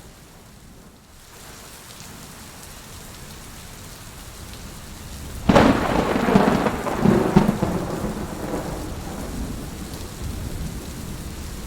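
Heavy rain falling steadily. A sudden thunderclap breaks in about halfway through, rumbling with several peaks for a couple of seconds before fading back under the rain.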